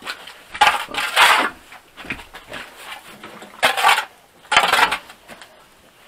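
Several short bursts of rustling and clatter: one about a second in, then two more around four and five seconds in.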